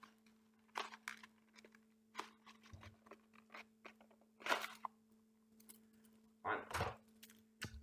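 Cardboard and plastic packaging of a trading-card structure deck being handled and pulled open: irregular crinkling, rustling and tearing with a few dull handling thumps, over a faint steady electrical hum.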